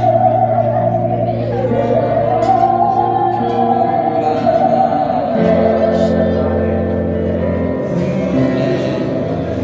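Musical saw playing a hymn melody: a single singing, wavering tone with vibrato that slides down and back up about two seconds in, over sustained backing chords.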